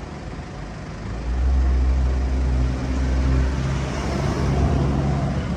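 A motor vehicle's engine rumbles low and steady nearby, swelling up about a second in and holding.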